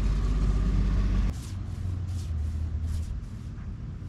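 A steady low engine-like hum that cuts off abruptly just over a second in. A quieter stretch follows, with a few short, soft swishes.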